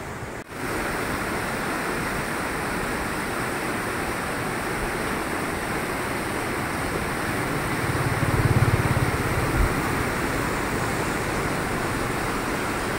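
Flooded river rushing and churning through white-water rapids, a steady noisy roar of water. A louder low rumble swells around eight to nine seconds in.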